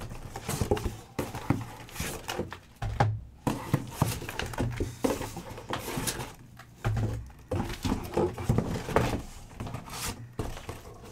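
Cardboard rustling, scraping and irregular knocks as a sealed case of trading-card hobby boxes is opened and the boxes are handled and set down.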